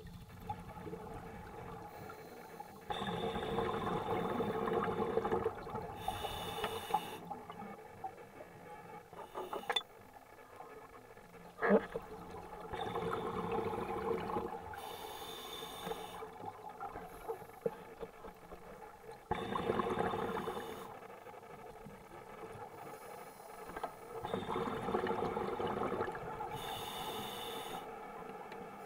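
Scuba diver breathing through a regulator underwater: a hiss with each breath and a rush of exhaled bubbles, coming round every several seconds. One sharp knock sounds about a third of the way through.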